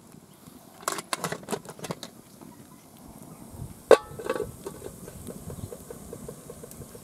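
A few knocks and crackles from firewood in the fire, then a single sharp metallic clink with a short ring, the loudest sound, as the aluminium steamer plate meets the pot. After the clink comes a fast, even ticking of about five a second.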